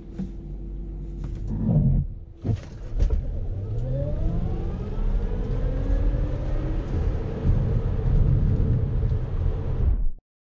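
Cabin sound of a Tesla Model S P100D's dual electric motors under full-power launch: a few brief knocks as it takes off, then a motor whine rising steadily in pitch over loud road and wind rumble as it accelerates hard. The sound cuts off abruptly near the end.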